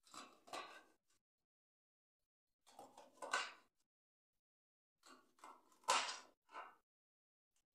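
Kitchen knife chopping long green peppers on a plastic cutting board, in three bursts of quick knocks with short pauses between.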